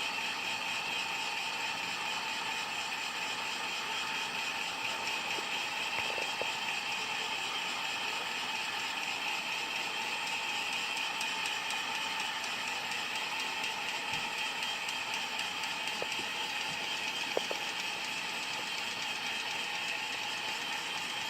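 Hot-air heat gun blowing steadily, a constant airy whine from its fan, used to soften the adhesive under a phone screen. A few faint clicks of prying tools are heard now and then.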